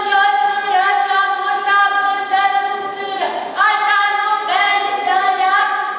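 A woman singing an unaccompanied Romanian folk song from the wedding customs, holding long notes that slide from one pitch to the next.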